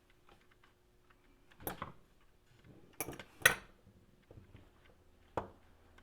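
Light clinks and knocks of small tools and RC car parts being handled, several separate strikes with the loudest about three and a half seconds in, as the drive shaft is worked back into its wheel yoke.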